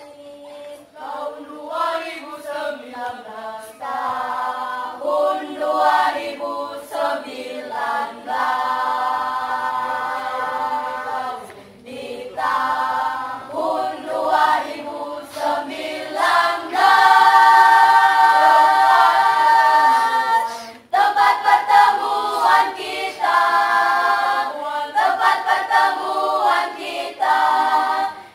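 Children's choir singing masamper, the Sangihe a cappella part-song, with no instruments. The singing comes in phrases with two short breaks.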